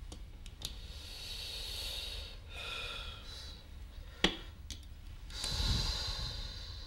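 Mahjong tiles clicking as a player draws from the wall and places tiles, with one sharp tile click about four seconds in. Soft breathing sounds come in between the clicks.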